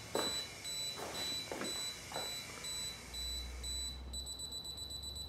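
A digital SLR camera's self-timer counting down: a high electronic beep about twice a second, switching to rapid beeping about four seconds in as the shutter is about to fire. A few soft knocks sound in the first half.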